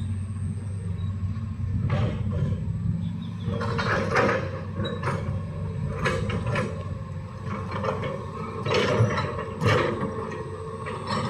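Hitachi excavator's diesel engine running steadily under load, with repeated metallic clanks and scrapes every second or two as the bucket and arm work the trench.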